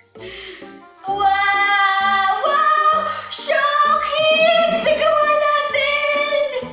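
Background music: a song with a high singing voice holding long notes over a low accompaniment, coming in loud about a second in.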